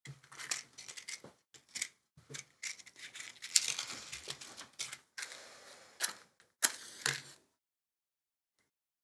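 Dry herb sprig being handled: crackling and rustling with a run of small clicks and scrapes, ending with a match struck about seven seconds in, after which the sound stops.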